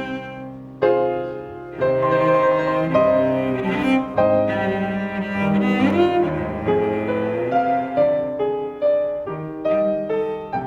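Live instrumental concert music: sustained melodic notes over a lower line, changing about once a second, with a quieter moment just after the start before a sharp new entry about a second in.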